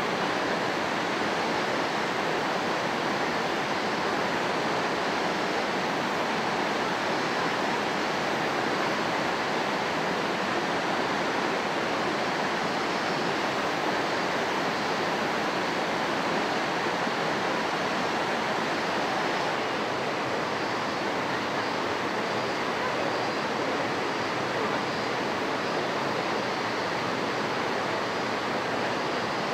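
Steady rush of flowing water, an even sound that holds unchanged throughout.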